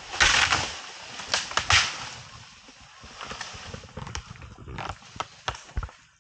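Asian elephant feeding on forest vegetation: a loud rustling rush just after the start, then a run of sharp snaps and cracks as plant material is torn and broken.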